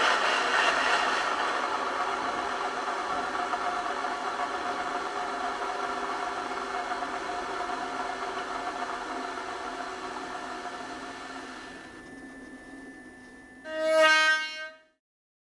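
Sound-equipped H0 model of a V 200 diesel locomotive running, its engine and running sound fading steadily as the train moves off. Near the end comes one short horn blast of about a second.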